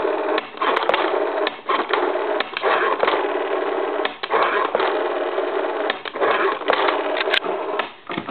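Rotary dial of a Deco-Tel chest telephone dialing a number: runs of rapid pulse clicks as the dial winds back after each digit, several digits in a row with short pauses between them.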